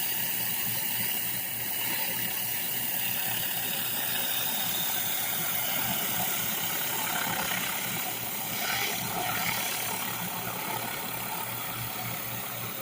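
Commercial pressure washer running with a large surface cleaner spraying concrete: a steady engine drone under an even hiss of water jets, with a brief swell about nine seconds in.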